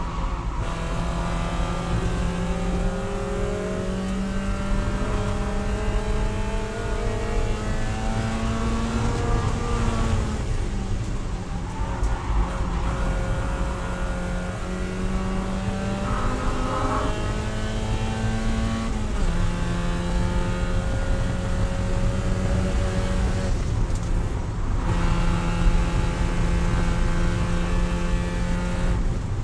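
Spec Miata's four-cylinder racing engine heard from inside the cockpit under hard throttle at about 5,000 rpm. The revs climb steadily and drop back sharply three times before climbing again.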